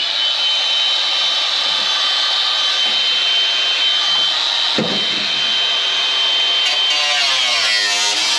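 A handheld power tool working the steel floor, giving a steady high whine over hiss, with a short falling sound about five seconds in. Guitar music comes back near the end.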